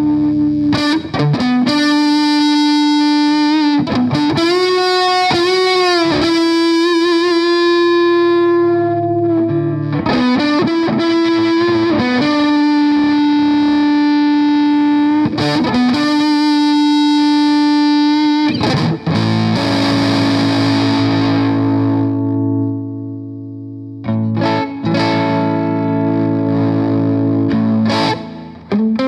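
Electric guitar played through a Boss BD-2 Blues Driver overdrive pedal: sustained overdriven single notes with bends and wide vibrato, one long note ringing out and fading in the middle, then more picked notes.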